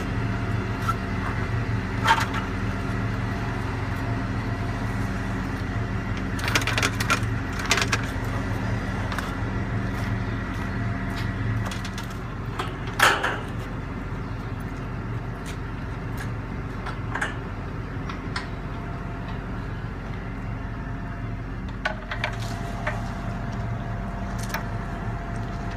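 Crane engine idling steadily, its note dropping slightly about halfway, with scattered knocks and clicks from hand work on the boom as the hoist cable and guides are refitted. The loudest knock comes about halfway.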